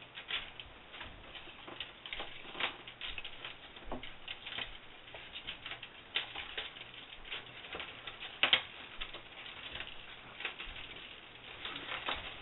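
Radiant barrier wrap and tape being handled and pressed down around a water heater: irregular crackling and rustling with scattered sharp clicks, the loudest about eight and a half seconds in.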